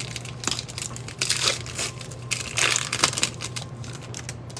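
Foil wrapper of a football trading card pack crinkling and tearing as the pack is opened, in irregular crackly bursts.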